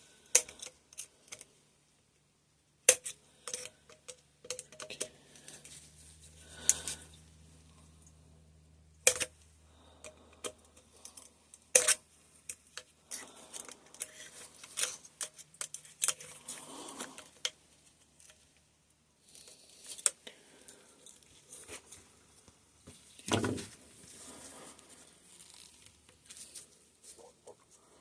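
Small metal suspension-fork parts and hand tools clicking, clinking and knocking as they are handled during disassembly. The sounds come as scattered sharp clicks, with a longer scraping sound about 23 seconds in.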